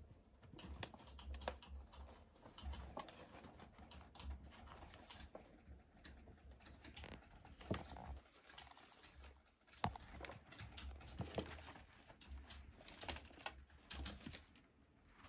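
Guinea pigs moving about and feeding: a quiet, irregular run of small clicks, crackles and rustles.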